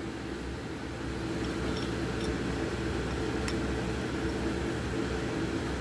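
Steady hum of ventilation machinery, with a couple of faint small clicks about two and three and a half seconds in as parts of the shift kit are fitted to the transfer case by hand.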